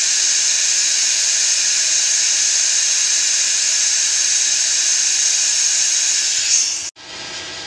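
A loud, steady high-pitched hiss from the forming machine. It cuts off abruptly about seven seconds in, leaving a much quieter hum.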